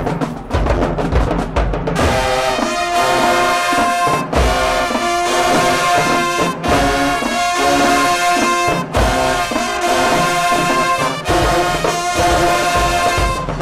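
High school marching band playing: drumline alone at first, then about two seconds in the brass section comes in with loud held chords. The brass plays in phrases broken by short stops every couple of seconds, with drums underneath.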